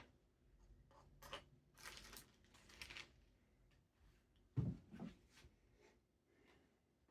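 Faint handling noises: a few short rustles and scrapes, then a soft thump about four and a half seconds in.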